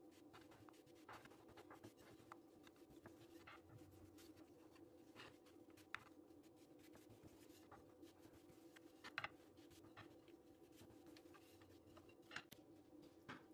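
Long thin wooden rolling pin rolling dough out on a floured wooden board: faint rubbing and rolling, with scattered light taps of the pin on the board. A steady faint hum lies underneath.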